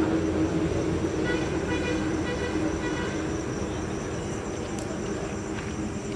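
Steady hum of road traffic, with a vehicle horn sounding faintly about a second in for a couple of seconds.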